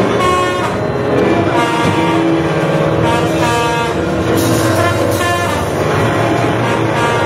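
Live band playing, with trumpet, trombone and saxophone over keyboard and drums. The horns play short phrases that recur about once a second.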